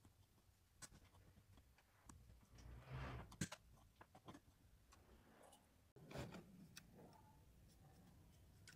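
Faint scraping and small clicks of a metal pick digging lint out of a phone's headphone jack and ports, with a louder scrape ending in a sharp click about three seconds in and another scrape just after six seconds.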